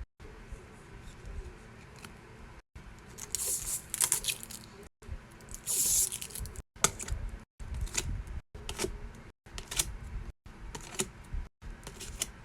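Gift-packing handling sounds: paper or plastic tearing and crinkling, with short taps and clicks. The sound is cut into short pieces with abrupt silences between them, the loudest rustles about three to four seconds in and around six seconds in.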